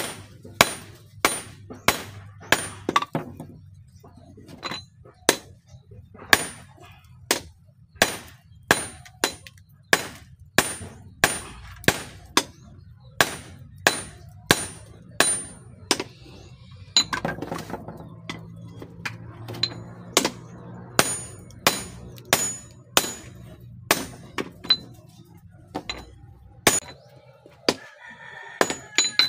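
Hand hammer forging a red-hot steel bowie knife blade on a small anvil: steady blows about one and a half a second, each with a short high metallic ring, with a brief pause about halfway through.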